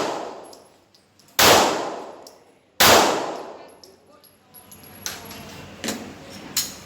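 Two shots from a 9mm Glock 17 pistol, about a second and a half apart, each followed by a long echoing decay. A few fainter clicks and knocks come near the end.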